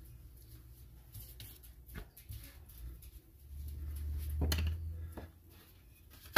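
Stainless bench scraper chopping through bread dough and knocking on a plastic cutting board: a few soft knocks, with a low rumble a little past the middle and a sharper knock at the very end.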